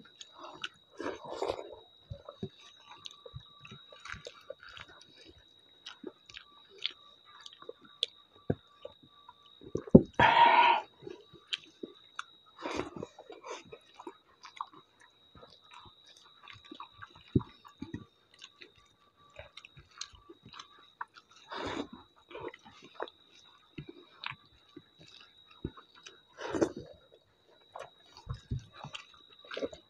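Close-miked chewing and eating sounds from two people eating rice and dal with their hands: soft wet mouth noises, small clicks and smacks, with one louder mouth or voice sound about ten seconds in. A faint steady high whine runs underneath.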